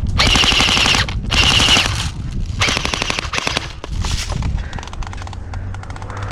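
Airsoft gun fired in rapid full-auto bursts, four bursts of quick clicks with a whine in each, the longest about a second. Fainter rapid clicking goes on after them.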